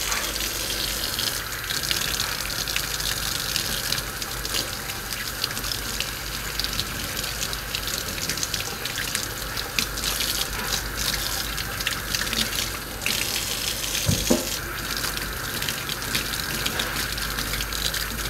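Kitchen faucet running steadily into a stainless-steel sink while baby red potatoes are scrubbed by hand under the stream, with scattered small clicks from the handling and one louder knock about three-quarters of the way through.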